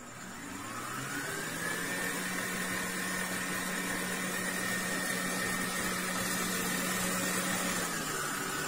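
Hanabishi electric stand mixer's motor starting up, its whine rising over about a second as the balloon whisk comes up to speed in cream paste in a steel bowl, then running steadily. Near the end the whine drops to a lower pitch as the speed is turned down.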